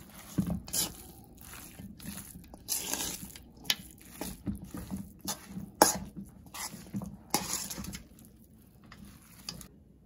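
Bare hands squishing and tossing shredded chicken salad dressed with Miracle Whip in a stainless steel mixing bowl: irregular wet squelches and rustles, with a sharp knock against the bowl about six seconds in. The mixing sounds die away near the end.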